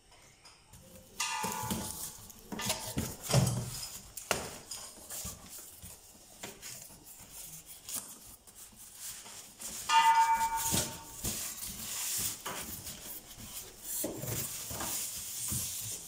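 Cardboard carton of a gas water heater being opened and unpacked by hand: flaps and packing rustle and knock irregularly, with two short squeaks from the packing, about a second in and about ten seconds in.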